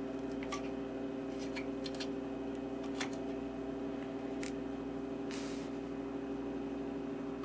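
A steady hum throughout, with a few faint light clicks of small metal Molex crimp connectors being pulled off the circuit board's posts and set down on a wooden bench, and a brief hiss about five and a half seconds in.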